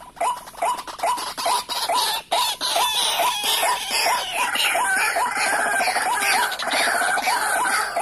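White-breasted waterhens calling: a string of short, harsh "ruak-ruak" croaks at about two or three a second. About three seconds in they thicken into a dense, overlapping chorus of calls.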